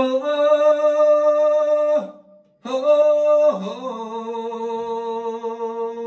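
A man's voice singing long held 'ho' calls: one note held about two seconds, then after a short breath another that steps down to a lower pitch and is held. It is the chanted 'hohoho' of the song, with little else beneath it.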